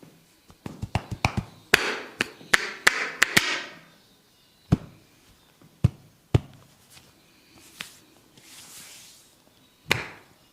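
A barber's hands slapping and chopping in a percussive massage. A quick run of sharp slaps and taps comes first, then single slaps a second or so apart, a soft swish, and one last slap near the end.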